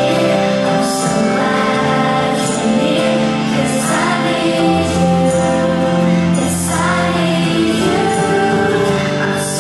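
A song playing: sung vocals over sustained instrumental backing, in a Christian or gospel style.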